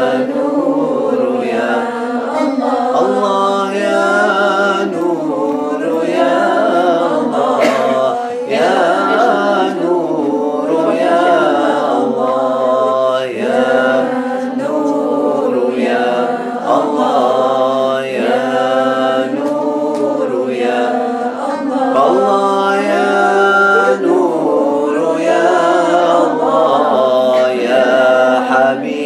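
Small group of men and women chanting Islamic dhikr together: a slow, melodic Arabic chant with long held notes.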